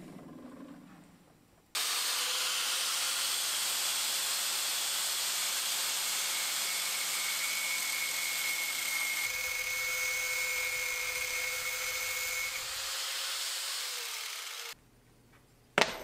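An angle grinder grinds the flattened tip of a tool-steel drill bit held in a vise, making a steady, loud hissing grind with a high whine. The grinding starts abruptly after a couple of seconds and cuts off suddenly near the end, followed by a single sharp tap.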